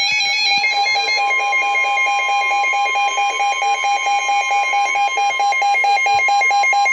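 Emergency alert attention tone announcing a weather warning: a steady high tone over a lower tone that pulses rapidly, loud and electronic.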